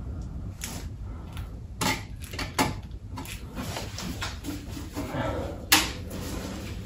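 Short, sporadic bursts of crackling and clicks from tack-welding a car's sill panel with a small Parkside welder, with knocks from handling the torch. The loudest sharp knock comes near the end.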